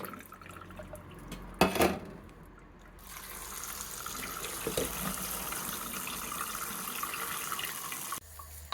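Tap water running into a sink, a steady rush that starts about three seconds in and cuts off shortly before the end. Near two seconds in there is a brief loud knock or clatter.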